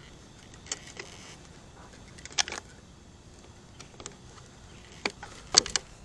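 Scattered clicks and rattles of hands handling the plastic chassis of an upside-down Arrma Kraton 6S RC truck, with a few sharp knocks, the loudest pair near the end.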